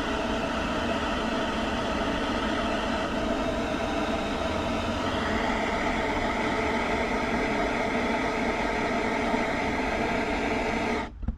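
Butane torch flame hissing steadily while heating heat-shrink tubing over a crimped wire connection; it cuts off near the end.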